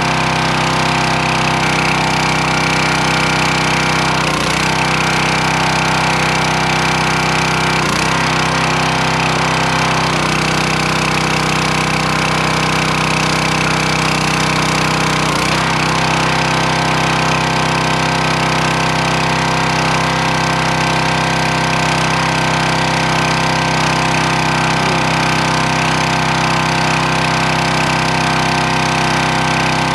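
Small gas engine of a log splitter running steadily, its pitch dipping briefly and recovering a few times.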